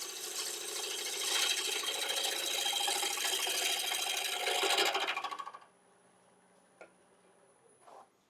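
Bowl gouge cutting a spinning ash blank on a wood lathe: a steady hissing, scraping shaving sound. The cut stops about five seconds in, leaving only a faint hum and a couple of light clicks.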